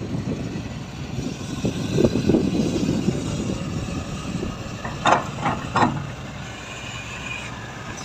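Matador Shantui ME210 crawler excavator running under hydraulic load as it swings its boom and digs, a steady low rumble. Three sharp metallic clanks come about five seconds in.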